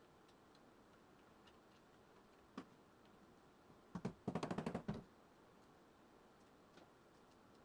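Improvised hammer taps: one knock, then a rapid run of about ten sharp knocks within a second, and a faint tick after.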